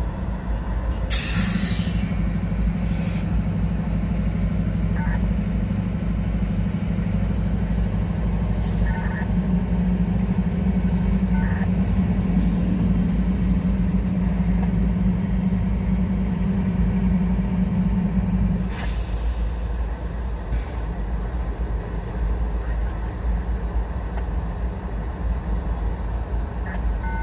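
Standing diesel locomotives idling with a steady low rumble. A deeper engine note holds from about a second in and stops abruptly at about 18 seconds, with short bursts of air hiss from the brake system.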